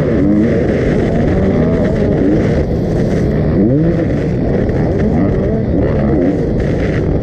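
2001 Honda CR250's two-stroke single-cylinder engine being ridden hard, its pitch rising and falling again and again as the throttle is opened and closed.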